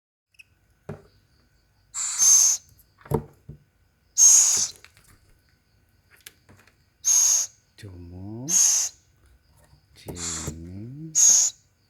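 Small pet owls giving harsh, hissing screeches, six short calls of about half a second each, the food-begging calls of owls waiting to be fed. Two low, sliding voice-like sounds come in about eight and ten seconds in.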